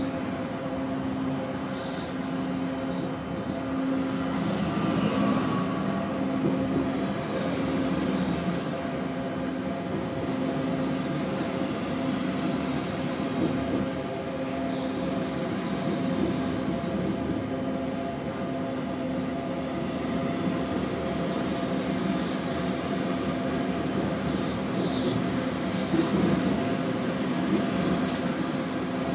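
A train running along the track, heard from inside the driver's cab: a steady hum with several held tones over the rumble and rattle of the wheels on the rails.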